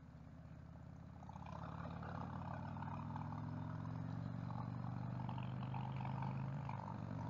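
Harley-Davidson V-twin motorcycle engine running at road speed, growing louder over the first couple of seconds as it pulls harder, then holding a steady note.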